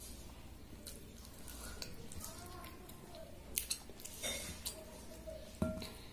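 Close-up eating sounds: chewing and wet squishing as fingers mix and scoop panta bhaat, rice soaked in water. A few sharp clicks or smacks come about three and a half, four and five and a half seconds in.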